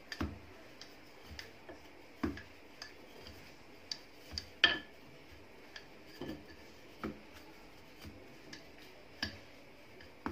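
Rolling pin working pizza dough thin on a countertop: light, irregular knocks and clicks about once a second, the loudest a little under halfway through.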